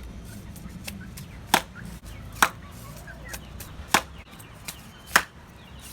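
Bamboo being chopped: four sharp, loud strikes spaced about one to one and a half seconds apart, with lighter taps between them.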